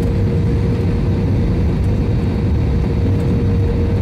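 Steady jet airliner cabin noise during the descent to land: turbofan engine and airflow noise heard from inside the cabin, a low rumble with a steady hum.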